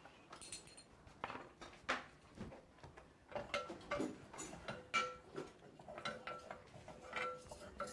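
Kitchen utensils clinking and knocking against metal pots and pans, a string of irregular light knocks, several ringing briefly.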